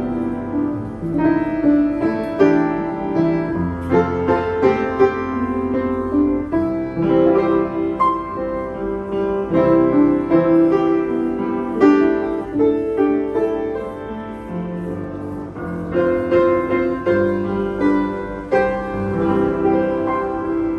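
Yamaha U1G upright piano played in a sound check: continuous chords and melody across the keyboard, with frequent struck notes and a few louder accents.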